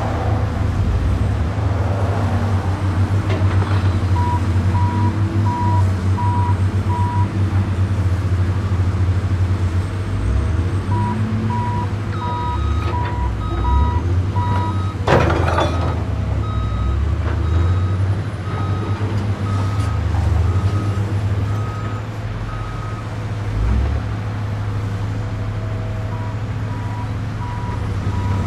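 Truck engine running with a low, steady rumble while backup alarms beep at an even pace, at two slightly different pitches at different times. A short, loud burst of noise comes about halfway through.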